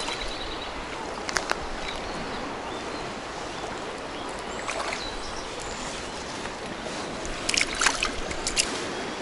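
Steady rush of a shallow river running over stones, with a few short clicks and knocks and a quick cluster of them near the end.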